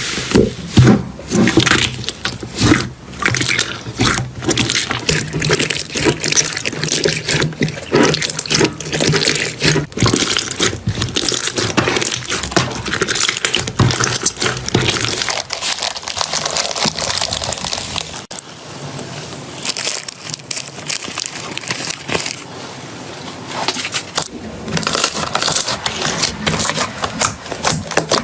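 Slime being worked: a dense run of rapid wet clicks, pops and crackles, easing to a softer hiss for a few seconds past the middle before the clicking picks up again.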